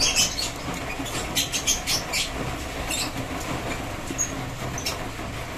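Lovebird chicks in a nest box giving short, raspy squeaks several times, with some rustling of the straw nest, over a steady low hum.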